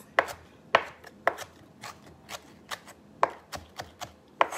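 Kitchen knife chopping fresh parsley on a cutting board: a series of sharp knocks of the blade striking the board, about two a second at an uneven pace.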